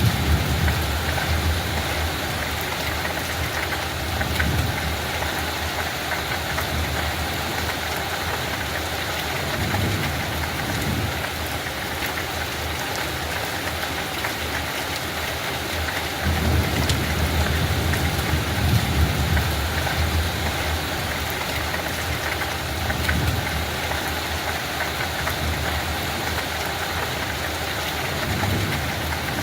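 Steady rain falling in an even hiss, with low rumbles that swell and fade several times, the longest about two-thirds of the way through.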